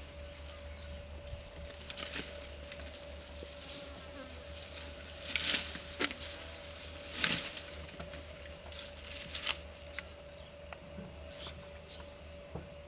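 Asian elephant grazing: a few short rustling swishes of grass being pulled, the loudest about five and a half and seven seconds in. Under them runs a steady buzzing drone.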